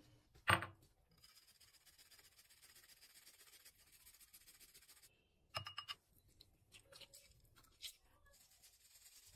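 A sharp knock near the start, then several seconds of steady scratchy rasping as a garlic clove is rubbed on a small plastic hand grater over a glass bowl, followed by a quick run of clicks a little past halfway and a few small handling sounds.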